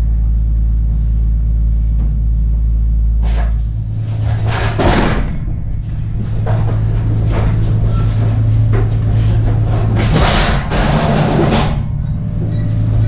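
A hand pallet jack rolled across the wooden floor of a box truck, its steel wheels rattling in two louder stretches, about four seconds in and again about ten seconds in, over a steady low drone.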